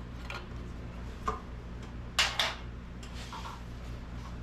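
Several sharp metallic clicks and taps from hands and tools working at the pressure gauge fitting on a steel sandblaster tank. The loudest is a pair about two seconds in, and a steady low hum runs underneath.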